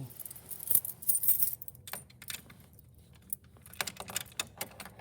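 Irregular small clicks and light metallic jingling, the busiest stretch of jingling between about half a second and a second and a half in.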